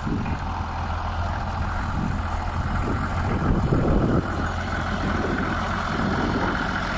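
Case 930 tractor's engine running steadily as the tractor moves slowly, a little louder about three to four seconds in.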